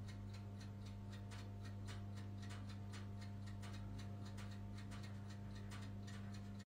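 Faint steady low electrical hum with rapid, even, faint ticking, cutting off suddenly at the end.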